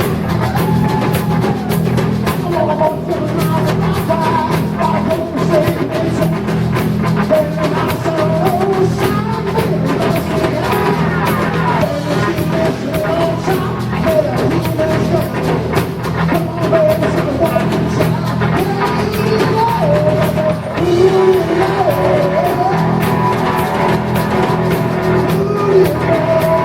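Live rock band playing loudly, with a driving drum kit, electric guitar and a sung vocal line.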